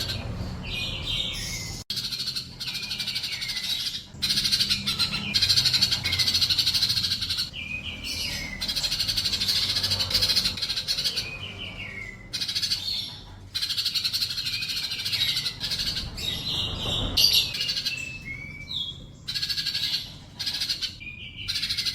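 Sunbird ('kolibri') singing a fast, high-pitched chattering song with down-slurred notes, in bursts of a few seconds broken by short gaps.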